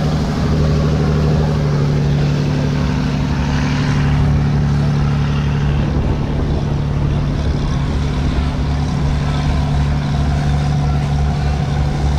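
Boat engine running with a steady low drone, under a haze of wind and water noise.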